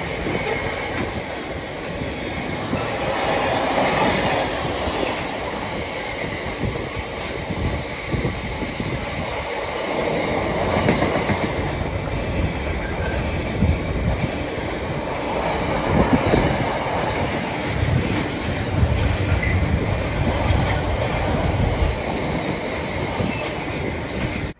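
Container freight train's wagons rolling past, steel wheels clattering over the rail joints in repeated knocks over a steady rumble, with a faint high wheel squeal.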